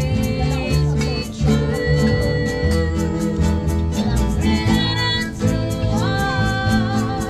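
Live band serenading a table: singing with long held notes over strummed guitar and a steady beat.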